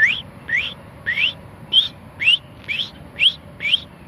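A man whistling an imitation of an American robin's call: a quick series of about eight short, sharp 'preep' notes, each rising in pitch, at roughly two a second, made with the tongue just behind the teeth.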